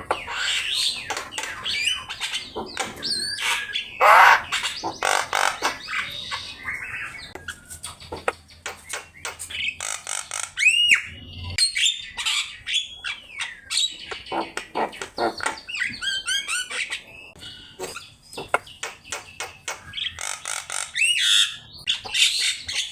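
Javan myna in full song: a long, varied run of harsh chattering squawks, rapid clicks and whistled notes, with a clear rising-and-falling whistle about eleven seconds in.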